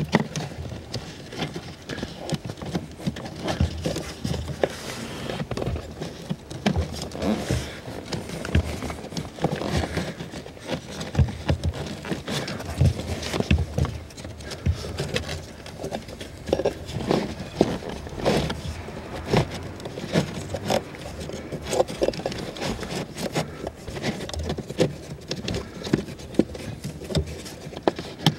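Irregular knocks, taps and scraping as a new pleated activated-carbon cabin air filter is worked and wiggled into its plastic housing under the dashboard.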